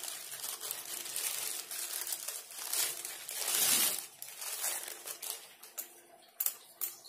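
Thin clear plastic bag crinkling and rustling as a folded aluminium tripod is pulled out of it. The crinkling is loudest about three and a half seconds in, then dies down, with a couple of light knocks near the end.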